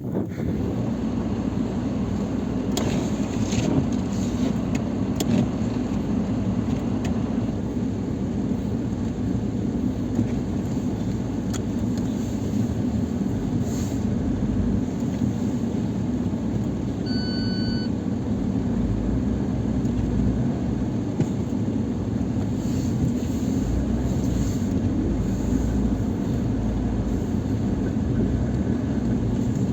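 Lada Niva Travel engine running steadily, a continuous low rumble. A few light clicks come early, and a short electronic beep sounds once about seventeen seconds in.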